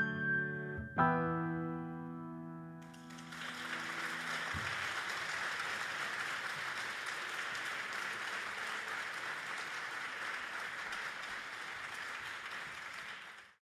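Last chords of a piece on a Brusegan grand piano ringing out and dying away. Then, from about three seconds in, an audience applauds steadily until the sound cuts off suddenly near the end.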